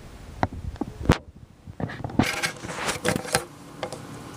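Scattered sharp clicks and taps, a loud one about a second in and a quick run of them in the middle.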